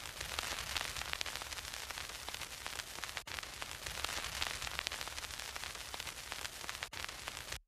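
Old-film crackle and hiss, dense with tiny pops over a low rumble, the sound of a worn film reel running through a countdown leader. It drops out briefly twice and cuts off suddenly near the end.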